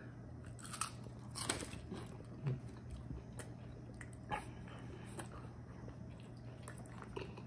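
A person chewing a bite of fried chicken tender with the mouth, faint crunches of the breading and wet mouth sounds coming irregularly, about once a second.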